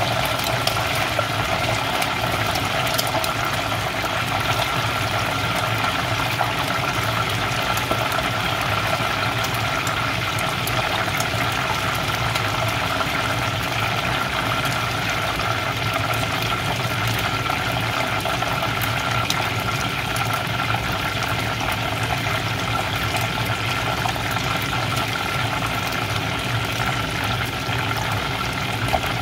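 Whole chicken deep-frying in a pan of hot oil: steady sizzling with many small crackles and pops.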